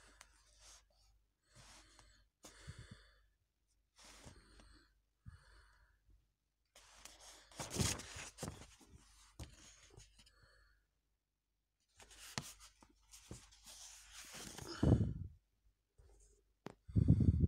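Paper rustling as the pages of a comic book are handled and turned close to the microphone. There are short scattered rustles, with louder ones about 8 and 15 seconds in and again near the end.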